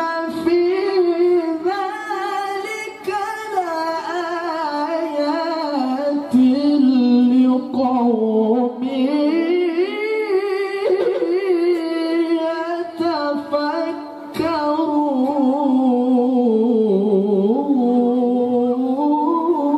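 A male qori reciting the Quran in the melodic tilawah style into a handheld microphone. He holds long, ornamented notes with wavering pitch and breaks off briefly for a breath about fourteen seconds in.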